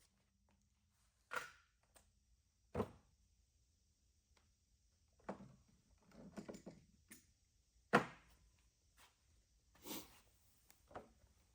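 Scattered knocks and clunks of hand tools and metal parts being handled on a small generator while the oil drain plug is worked loose, about seven separate hits with the sharpest about eight seconds in.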